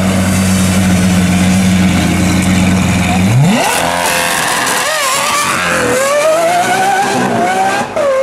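Lamborghini Aventador SVJ's 6.5-litre V12 through a straight-piped DTX exhaust, running steadily at low revs, then about three seconds in pulling away hard. The pitch climbs sharply, dips briefly about five seconds in, and climbs again before dropping near the end.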